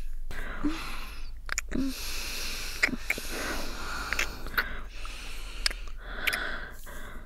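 Kissing: repeated wet lip smacks and mouth clicks over breathy exhales and sniffs.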